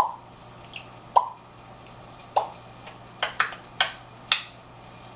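African grey parrot making sharp popping clicks with its mouth: seven short pops, the first three about a second apart, then four coming quicker about three seconds in.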